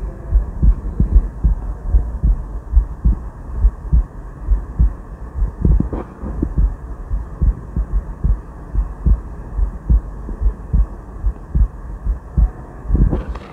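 Human heartbeat heard through the diaphragm of an Elko EL 050 Alpha Tone stethoscope: a steady run of low, dull thumps.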